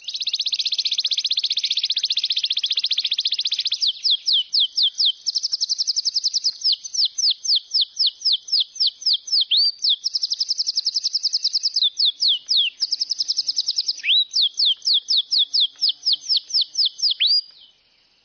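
A small songbird singing: buzzy high trills alternating with long runs of quick, downward-sweeping whistled notes, several a second, with a few rising notes near the end.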